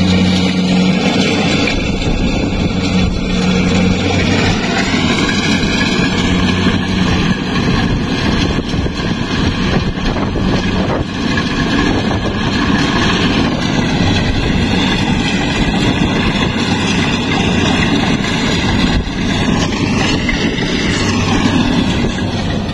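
Combine harvester running while harvesting rice: a steady, loud engine and machinery drone whose pitch wavers up and down a few times.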